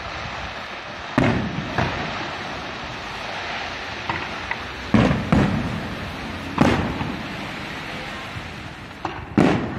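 Fireworks display going off: a continuous crackle of bursting shells with about six sharp booms, two near the start, two close together in the middle, another just after, and a loud one near the end.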